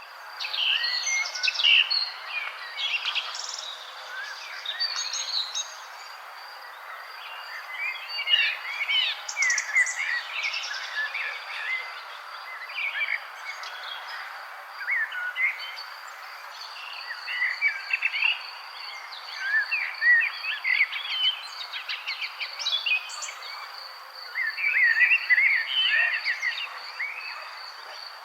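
Many songbirds chirping and singing, with short rapid calls that come in busy bursts. Under them runs a steady high insect trill over a constant soft hiss.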